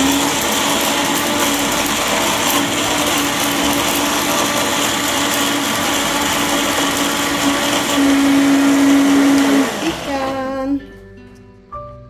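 Small electric blender running at full speed, grinding ginger, galangal, lemongrass, shallots and garlic with coconut milk into a smooth wet spice paste, with a steady motor hum under the churning. It is switched off about ten seconds in and spins down, leaving background music.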